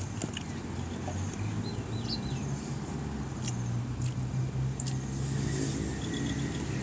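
Faint soft clicks of fingers working rice on a banana leaf and of chewing, over a steady low hum, with a bird chirping briefly about two seconds in.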